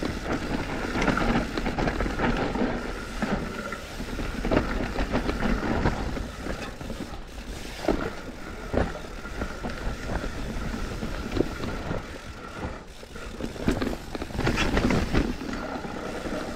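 Mountain bike riding down a slippery dirt trail: tyre noise on wet soil and a steady run of rattles and knocks from the bike over roots and bumps, with wind on the microphone.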